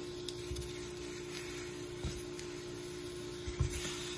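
Halved tomatoes on a hot comal, sizzling with a steady hiss, with a few soft knocks as pieces are set down or moved, about three in all.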